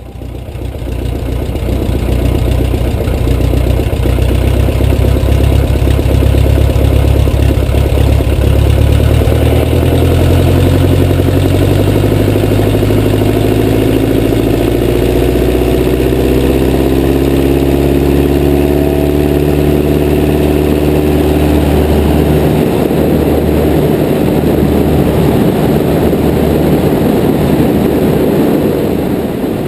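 Piper J3 Cub's four-cylinder opposed engine and propeller running at full power on the takeoff roll, the engine note rising from a little under halfway through as the plane gathers speed, with wind rushing past the camera.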